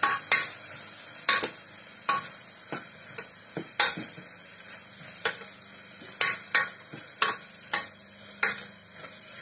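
Metal ladle scraping and clicking against the side and base of a stainless steel pressure cooker as onions and tomato are stirred. The strokes come irregularly, one or two a second, over a steady sizzle of frying.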